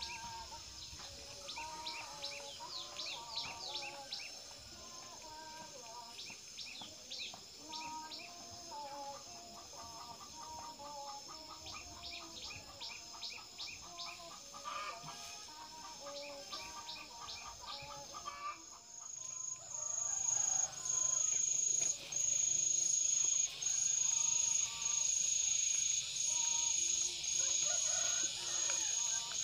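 Chickens clucking, with small birds chirping in quick high trills. About 19 seconds in, a louder insect chorus starts: a high, shrill drone broken by brief gaps about once a second.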